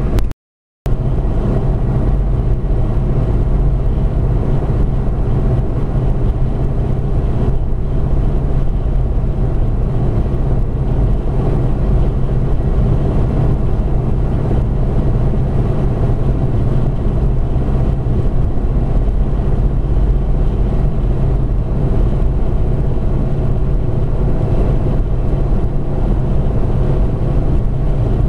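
Steady drone of a car cruising at highway speed, heard inside the cabin: engine, tyre and wind noise. It cuts out to silence for about half a second near the start.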